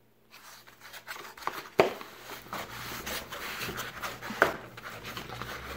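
Hard-to-open product packaging being worked open by hand: steady rustling and tearing, with a few sharp snaps, the loudest about two seconds in and another past four seconds.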